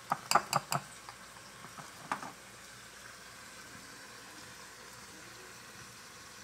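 A metal spoon clinking against a glass mixing bowl of cornbread batter: four quick clinks, then one more about two seconds in. A faint steady hiss runs underneath.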